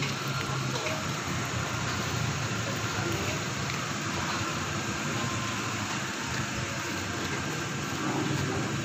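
Chicken satay skewers sizzling over glowing charcoal in an open trough grill: a steady hiss with faint crackles, over a low rumble.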